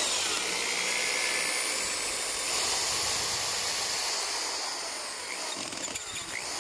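Black & Decker power drill running steadily as it backs out a long screw, a continuous high whir that starts abruptly and slowly eases off over the last few seconds.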